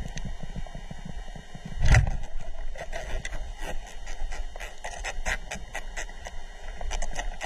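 Underwater sound picked up by a diver's camera on a reef: a low rumble of water movement, one heavy thump about two seconds in, then scattered sharp clicks and crackles.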